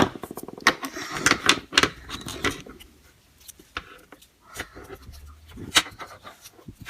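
Plastic Play-Doh toy tools clicking, tapping and rattling as they are handled, with a quick run of ticks at the start and scattered knocks after.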